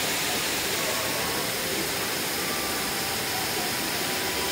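Steady rush of a curtain waterfall: water falling in a wide sheet onto the streambed below.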